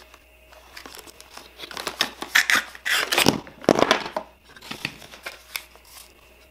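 Cardboard box flaps, card inserts and plastic wrapping rustling, crinkling and scraping as a small accessory box is opened and its contents pulled out, in uneven bursts that are loudest in the middle.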